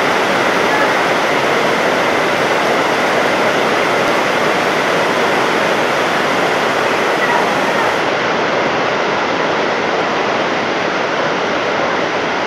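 Heavy summer rain pouring down steadily onto market awnings and wet pavement, with runoff streaming off the edge of an awning.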